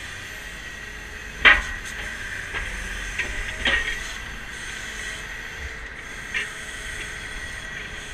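Hydraulic system of a rear-mount grapple truck running while the boom and grapple are worked from the joysticks: a steady whine and hiss, with one sharp knock about one and a half seconds in and a few softer knocks after.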